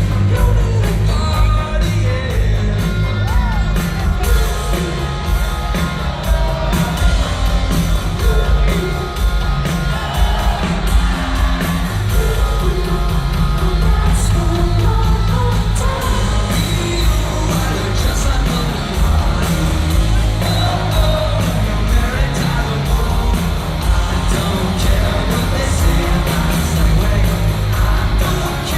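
Live rock band playing loud amplified music with a singer, over heavy bass and dense drums.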